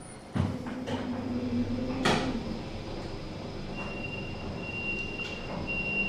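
Otis lift car setting off with a click and a low motor hum. About four seconds in, a high electronic beep sounds three times.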